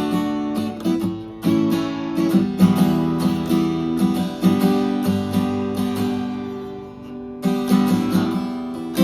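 Acoustic guitar with freshly fitted new strings being played, chords strummed and let ring one after another.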